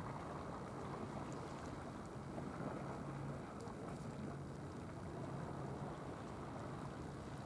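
Steady seaside ambience of wind and water with a faint low hum that comes and goes.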